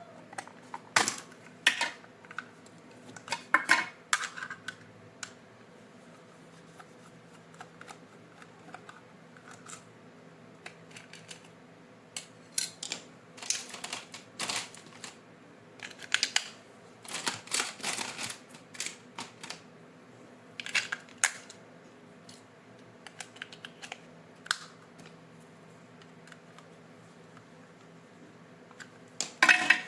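Irregular clicks, taps and short rustles of hands handling plastic toy packaging and parts, coming in clusters with quieter gaps between, over a faint steady hum.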